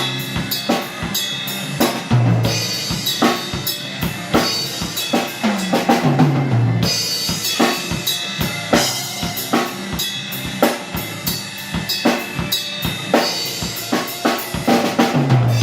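Rock band instrumental passage led by a busy drum kit, with kick drum, snare and cymbal hits, and a bass guitar sliding between low notes a few times.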